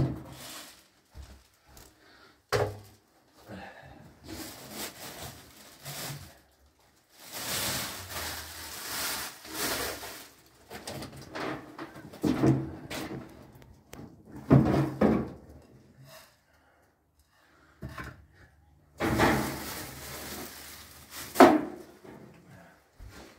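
Intermittent handling noises: sharp knocks with stretches of rustling and scraping between them, the longest rustle a few seconds long.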